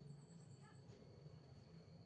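Near silence: faint room tone with a low hum and a thin steady high tone.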